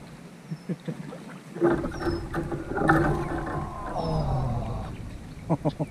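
A man's wordless excited vocalizing: a long drawn-out cry that slides down in pitch, then, near the end, a quick falling run of laughter.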